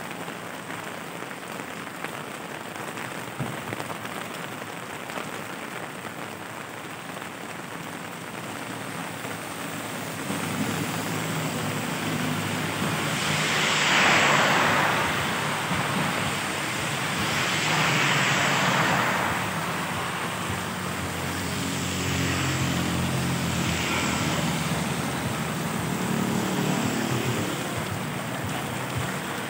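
Steady rain falling on pavement and road, with vehicles passing on the wet road: two loud swelling tyre hisses about halfway through, then a couple of fainter ones, over an engine hum in the second half.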